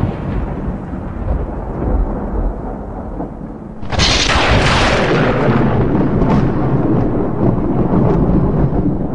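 Intro sound effects: a heavy low rumbling boom that fades away, then a sudden loud impact about four seconds in that rumbles on.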